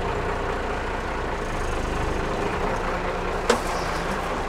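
Cummins 12-valve turbo-diesel inline-six running steadily at idle, with one sharp knock about three and a half seconds in.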